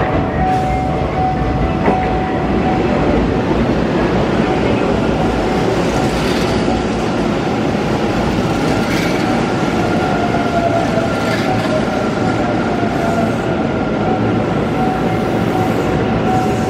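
Hanshin 1000-series electric train pulling into the platform and slowing to a stop. Its wheels rumble and clack over the rails, and the motor whine falls in pitch as it brakes.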